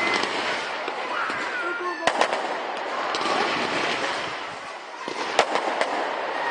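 Fireworks going off: continuous crackling, with sharp bangs in a quick cluster about two seconds in and a single bang near five and a half seconds.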